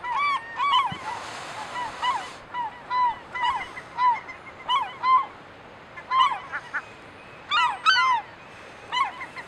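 Gulls calling over and over: a string of short, arched calls from several birds, overlapping in places and thickest near the end. A brief hiss sits under the calls about a second in.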